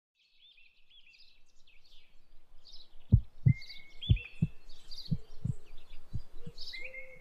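Repeated short bird chirps, joined about three seconds in by a low heartbeat-like double thump about once a second, the loudest sound, as a music soundtrack begins.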